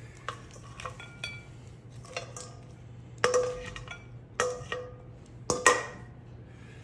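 Metal tongs and a stainless steel mixing bowl clinking and scraping against a ceramic plate as salad is served, in a string of clinks. Several strikes leave the steel bowl ringing briefly, and the loudest come a little over three seconds in and about five and a half seconds in.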